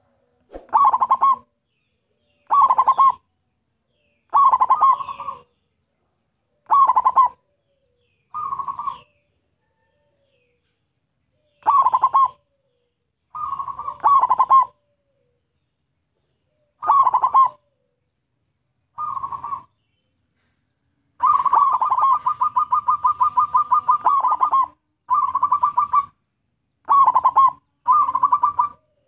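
Zebra dove (perkutut) cooing: short phrases of soft notes around one pitch, repeated every one to three seconds. About three-quarters of the way through, one longer run of rapid notes lasts about three seconds.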